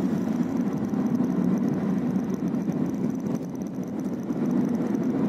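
Steady running noise of a moving road vehicle, engine and tyres heard from on board, an even rumble that changes little.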